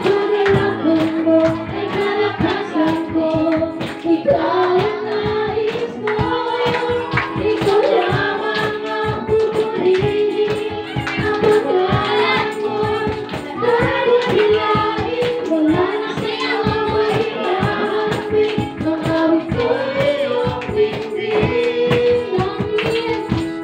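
Congregational worship song: a group of voices, women and children among them, singing in Tagalog over a band with a steady strumming beat and tambourine.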